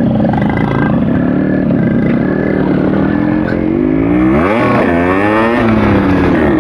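Yamaha RX100's two-stroke single-cylinder engine running under way, its note steady and then revved up and down sharply a little past the midpoint.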